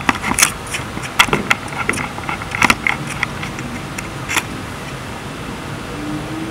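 Plastic bubble wrap crinkling and crackling in irregular clicks as it settles in a glass jar, dying away after about four seconds, over a steady background hiss.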